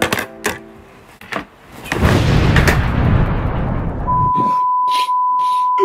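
An explosion sound effect: a loud blast with a deep rumble that dies away over about two seconds. A steady high beep tone follows near the end, held for about two seconds, after a few sharp clicks at the start.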